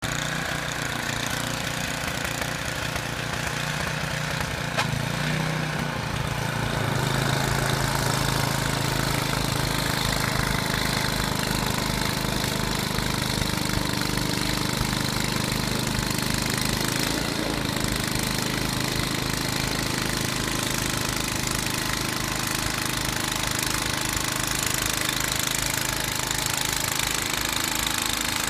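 An engine running steadily with an even low pulse, getting louder about six to seven seconds in.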